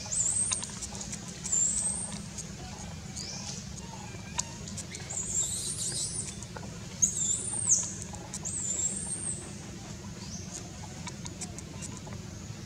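Baby macaque squealing: repeated very high-pitched squeaks that rise and fall in pitch, coming in short clusters with the loudest near the middle, over a steady low rumble.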